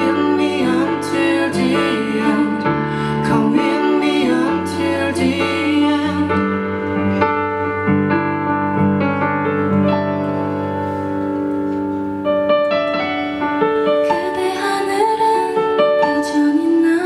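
A live acoustic pop performance: a stage keyboard playing piano chords with acoustic guitar and some singing. About six seconds in, the sound thins to mostly soft piano notes, and fuller sound with a voice comes back near the end.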